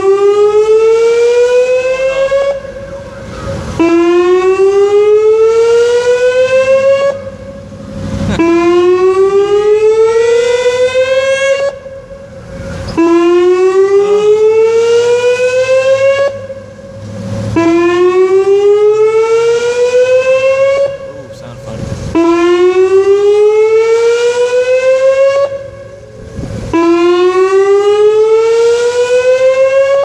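Whelen WPS 2810 electronic pole siren sounding a monthly outdoor warning siren test: a loud rising sweep that climbs over about three seconds, breaks off and starts again, about every four and a half seconds.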